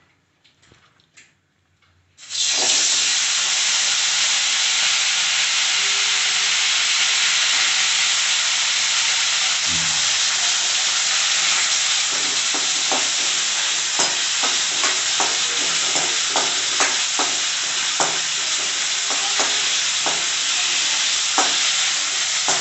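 Hot cooking oil in a pan bursts into loud sizzling about two seconds in as ingredients go in, then keeps frying steadily. A spoon stirs and scrapes against the pan, with the scrapes and taps coming more often in the second half.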